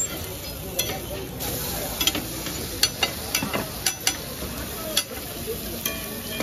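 Uttapams sizzling in oil on a flat griddle (tawa), with a metal spatula and tongs clicking and scraping against the griddle about half a dozen times as they are turned.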